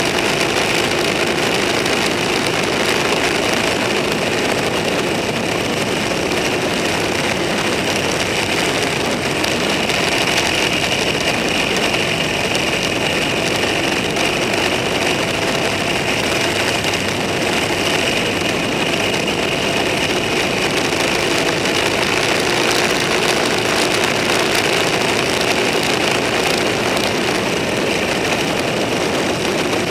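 Vehicle engine running at a steady cruising speed under a constant rush of wind and road noise, without any change in pace.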